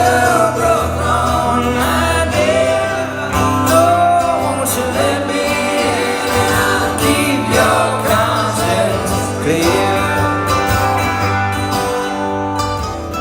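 Live band playing a song: a sung melody over strummed guitar and a steady bass line, easing off near the end.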